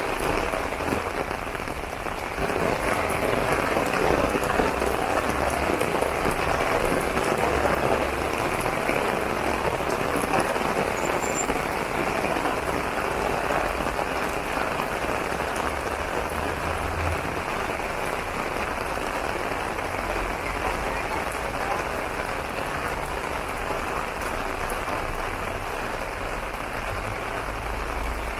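Steady rain falling on an open umbrella overhead, an even patter that grows a little heavier about two seconds in.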